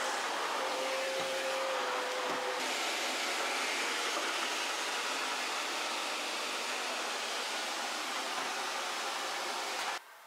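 An electric appliance's motor and rushing air running steadily, its sound brightening a couple of seconds in, then cutting off suddenly near the end.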